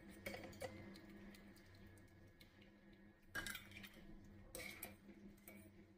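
Faint clinks and light clatter of a wire spider skimmer against a steel pan and bowl as boiled tomatoes and dried red chillies are lifted out of the water and tipped into the bowl, with the louder knocks about halfway through and again a second later.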